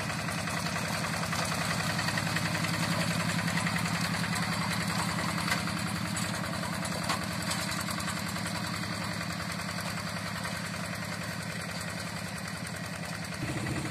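Yanmar Bromo Pro hand tractor's single-cylinder diesel engine running steadily with a rapid, even chugging. Its low tone shifts slightly near the end.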